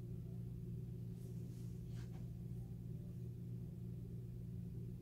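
A steady low hum of room background noise, with a few faint, brief rustles about one and two seconds in.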